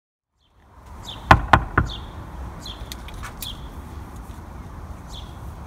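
Three quick knocks on a uPVC front door, a little over a second in, over outdoor background noise with a bird chirping now and then.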